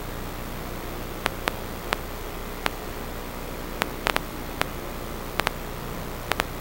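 Steady electronic static hiss with a faint low hum, broken by about a dozen short sharp clicks at irregular intervals.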